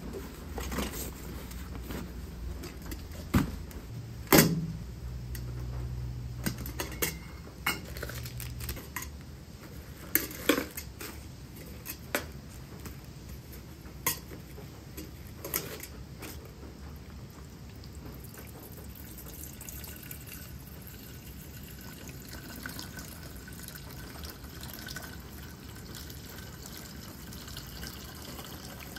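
Camp gear handled with a series of sharp knocks and clinks, then in the second half water poured steadily from a flask into a small black camp kettle, filling it.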